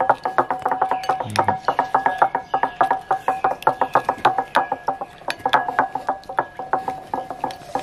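A metal spoon stirring a liquid chili dressing in a ceramic bowl, clinking against the bowl's sides in rapid clicks, several a second, with the bowl ringing faintly under them.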